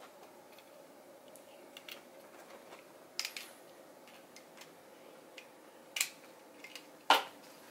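Plastic LEGO pieces clicking as a model is handled and worked with the fingers: a few sharp clicks, the loudest near the end, with lighter ticks between.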